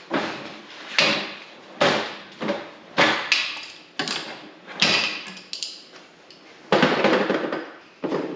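Knocks and clatters of the steel workbench frame and its parts being handled during assembly, a sharp one roughly every second, with a longer rattling scrape a little before the end.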